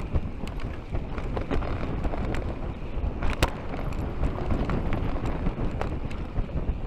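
Wind rushing over an action camera's microphone on a fast mountain-bike descent, with the tyres rolling on a dirt trail and sharp clatters from the Kellys Swag enduro bike as it rattles over bumps, the loudest about three and a half seconds in.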